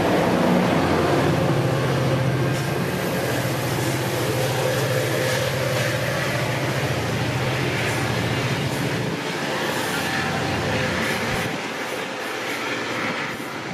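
EMD F40PH diesel locomotive approaching with a steady low engine drone over the rumble and hiss of the train on the track; the engine drone drops away about nine seconds in.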